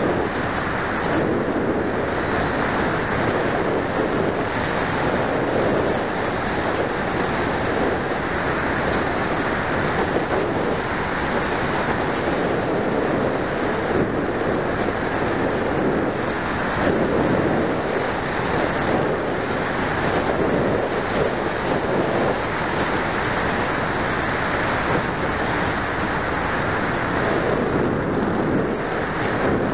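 Wind rushing over the onboard camera's microphone on a radio-controlled motor glider in flight, a steady noise that swells and eases every few seconds. No motor tone is heard.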